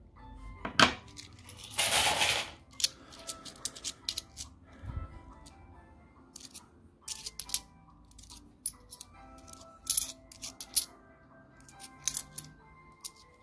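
Bimetallic 2 euro coins clinking and clicking against each other as a handful is sorted through in the hand, in many short irregular clicks. About two seconds in comes a louder rustle lasting about a second. Quiet background music runs underneath.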